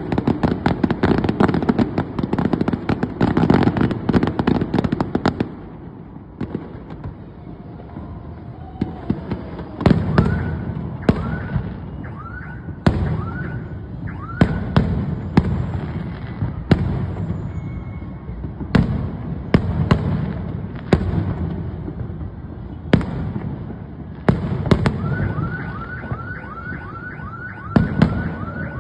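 New Year fireworks: a dense run of rapid crackling bangs for about the first five seconds, then scattered single bangs. An alarm's short rising whoops repeat briefly partway through and again near the end.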